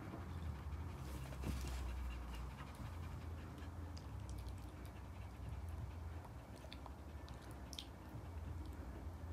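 Dogs panting softly, over a steady low hum, with a few faint ticks.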